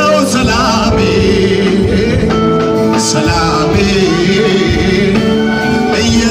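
Live Ethiopian Protestant worship song (mezmur) played loud: a singer's voice over band accompaniment with a steady beat and held notes.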